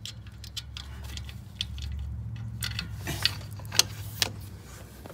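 Light metallic clicks and ticks, the sharpest few about three to four seconds in, from fingers unscrewing an engine drain plug that has already been broken free with a wrench, over a steady low hum.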